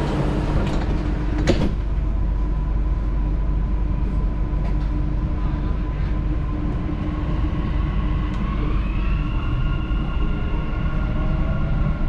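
Dubai Metro train interior: two sharp knocks in the first two seconds over a steady electric hum, then from about eight seconds in the traction motors' whine rises in pitch as the train starts to pull away from the station.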